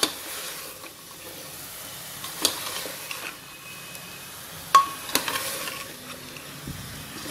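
Pumpkin pieces sizzling in a pressure cooker as a steel ladle stirs them, scraping through the chunks, with three sharp clinks of the ladle on the metal pot. The loudest clink, a little under five seconds in, rings briefly.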